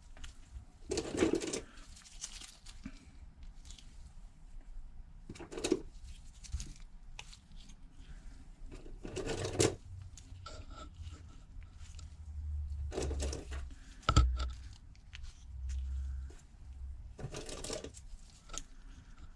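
Handling noises at a phone repair bench: intermittent rustling and scraping of hands and parts, with a sharp click about fourteen seconds in and some low bumps.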